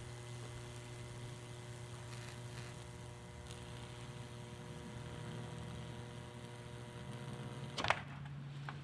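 Microwave oven transformer humming steadily with a low mains hum and higher overtones. Near the end the higher hum tones cut off, with a short sharp clatter.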